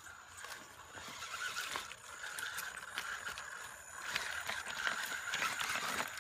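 Electric motor and drivetrain of an Axial Wraith 1/10-scale RC rock crawler whining steadily as it crawls over loose gravel and rocks. Stones click and clatter under its tyres, and the whine gets louder about half a second in.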